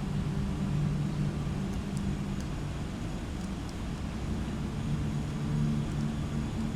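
Steady low mechanical hum over a background hiss, swelling and easing a little, with a few faint ticks.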